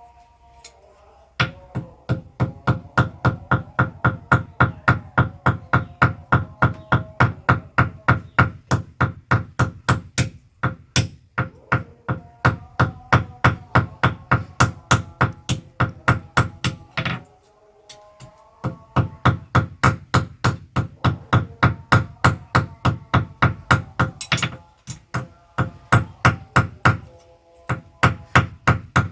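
Hammer blows on leaf-spring steel at an anvil, a quick even rhythm of about three strikes a second, each strike ringing. The hammering starts about a second and a half in and pauses briefly three times.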